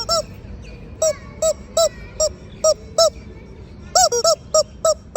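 Duck quacking: about a dozen short quacks in quick, irregular succession, some in pairs.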